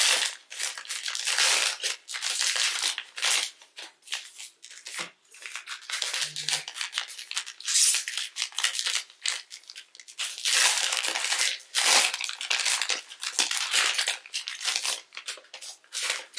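Plastic trading-card pack wrappers being torn open and crinkled by hand: a long run of irregular rips and rustles.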